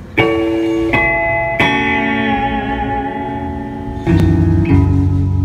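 Amplified electric guitar playing ringing chords, struck three times in the first two seconds and left to sustain. About four seconds in, deep bass notes join and the band comes in.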